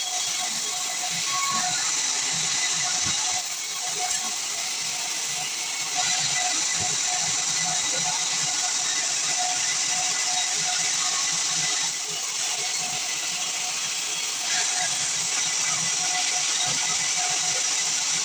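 Sawmill band saw running and cutting through pine, a steady hissing whine whose level steps up and down a few times as the cut goes on.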